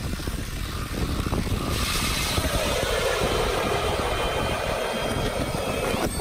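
Cordless drill spinning an Eskimo Pistol Bit ice auger down through lake ice: a steady motor whine over the grinding and scraping of the blades chewing ice, growing louder about two seconds in as the bit bites deeper.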